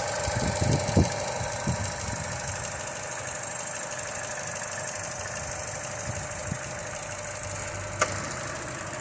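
Vauxhall Mokka X 1.4 turbo petrol four-cylinder engine idling with the bonnet open, a steady, even tick-over that sounds healthy. There is one sharp click near the end.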